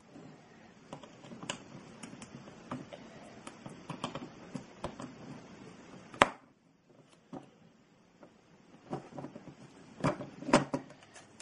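Plastic Lego bricks being handled and pressed together, making scattered light clicks, with a sharper snap about six seconds in and a few more clicks near the end.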